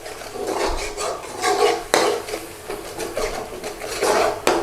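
A spoon stirring and scraping around a pan, working base gravy into a tomato paste and spice mix: a run of rough, irregular scrapes with a sharp knock about two seconds in and another near the end.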